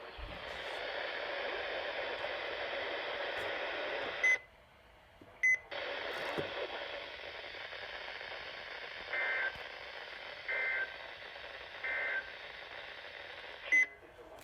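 Weather-radio receiver hissing with static, broken by short electronic beeps. A sharp beep about four seconds in cuts the hiss off, and another a second later brings it back. Three two-pitched beeps follow about a second and a half apart, and a last beep comes near the end as the hiss cuts out again.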